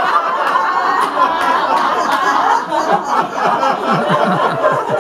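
A roomful of people laughing and chuckling together at the punchline of a joke.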